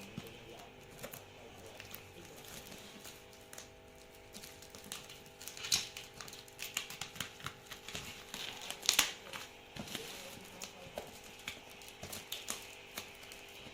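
Handling of a boxed drone's packaging: irregular crinkles, taps and clicks, the sharpest a little before the middle, over a faint steady hum.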